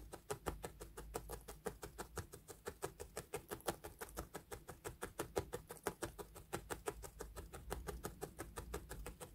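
Felting needle stabbing rapidly and repeatedly through loose wool into a felting pad, a steady run of light pokes about six or seven a second, as wool is felted down into place.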